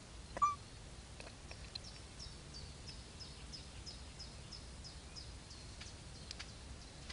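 A faint, quick series of high, falling chirps, about three a second, like a small bird calling. A short louder squeak sounds about half a second in.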